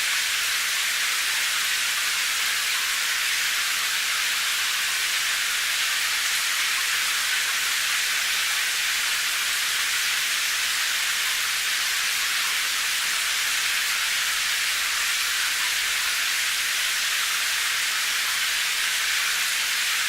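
Steady rain sound effect: an even high hiss of rainfall with no single drops or gusts standing out.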